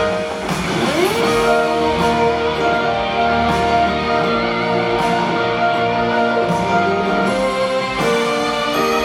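Live band music from a rock band playing an instrumental passage with guitar, held notes and a rising glide about a second in.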